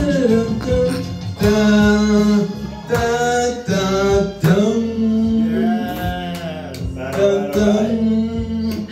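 Backing track playing the acoustic-guitar instrumental break between verses of a ballad, with held melody notes over strummed guitar.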